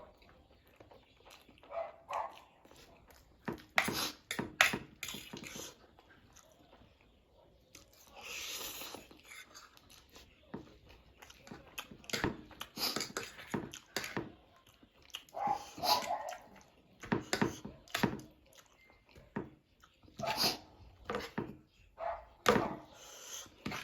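Close-miked eating of spicy instant noodles: wet chewing and smacking in quick irregular clicks, with several long slurps or hissing breaths in between.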